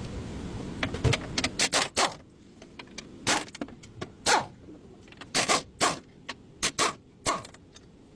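A series of sharp knocks and clacks at irregular spacing, about a dozen over six seconds, after a low steady hum that fades out about two seconds in.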